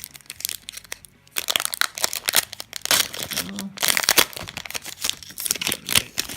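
Foil booster pack wrapper crinkling and crackling in a quick irregular run as the trading cards are pulled out of the opened pack.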